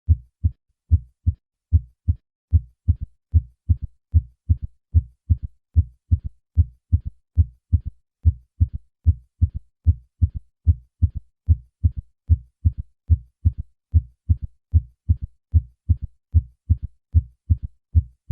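Heart sounds: a regular series of short, low-pitched beats, with a third heart sound (S3) following the second sound in early diastole to give a galloping triple rhythm, the ventricular gallop, a sign of heart failure in patients over 40.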